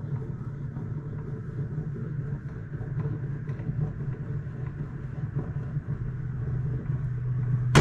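A steady low hum with faint irregular ticks as a double Pitzen knot in 20 lb fluorocarbon fishing line is pulled on a force-gauge test stand, then a single sharp snap at the very end as the line breaks.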